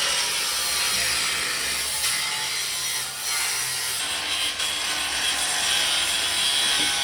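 Steady, loud rasping noise of an abrasive tool working on the van's bodywork, with no clear rhythm or pitch.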